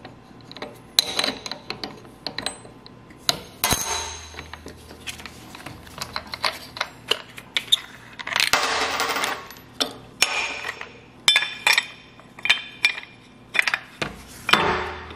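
Irregular metallic clinks and taps as an angle grinder's disc is taken off with a pin spanner and its flange nut and washer are set down on a metal workbench, with a longer scraping rub about eight seconds in and another near the end.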